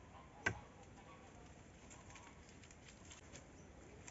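One sharp knock about half a second in, over faint scattered ticks and light rustling of palm fronds being handled.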